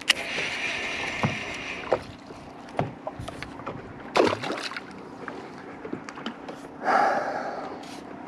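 Handling noise on the camera: scattered knocks and rubbing over a steady low hum. There is a breathy rush for about two seconds near the start and another about seven seconds in.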